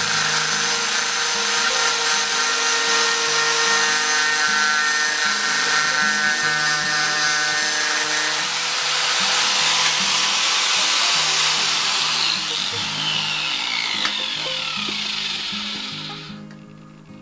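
Electric angle grinder grinding into the steel of a pair of pruning shears near the pivot, a loud, steady high-pitched grind. About twelve seconds in the grinder is switched off and its whine falls in pitch as the disc spins down, fading out near the end.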